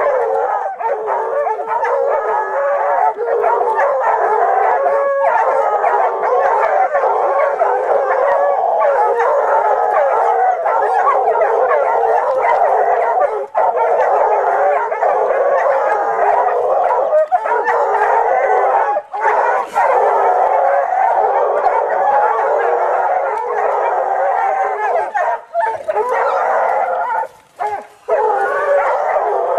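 Several hounds baying and barking without pause at a leopard up a tree, their howling calls overlapping; a few short breaks come near the end.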